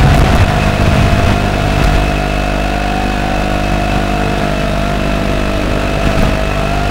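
Small FPV drone's electric motors and propellers running with a steady whine that wavers slightly in pitch.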